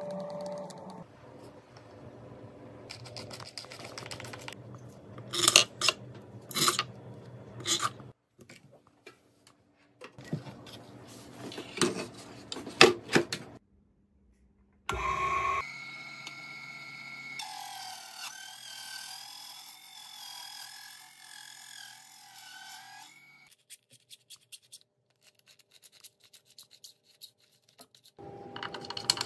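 Rubbing and scraping with several loud sharp clicks, then a small benchtop mini table saw switched on by its rocker switch, its motor running with a wavering whine for several seconds before it stops.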